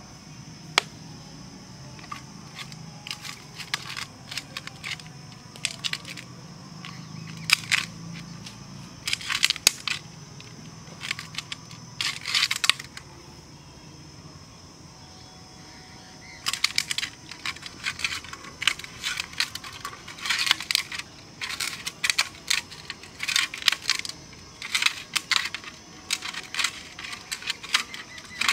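Hands mixing fishing bait in a steel plate: fingers scraping and clinking against the metal in irregular bursts, with a lull about halfway through. A steady high insect drone runs behind.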